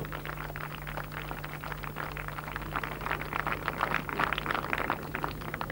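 Faint outdoor background of irregular light clicks and taps over a steady low hum.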